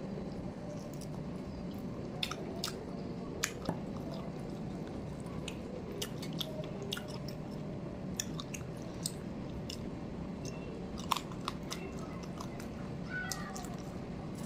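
Close-miked chewing and biting as chicken on the bone and rice are eaten by hand, with many short wet mouth clicks and smacks scattered throughout.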